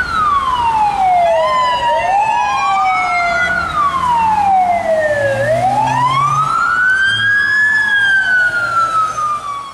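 Ambulance siren wailing, its pitch sliding slowly up and falling back every few seconds, with a second siren tone overlapping in places.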